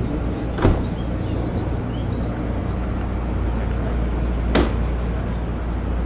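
Steady low mechanical drone of running machinery, with two sharp knocks: one under a second in, the other about four seconds later.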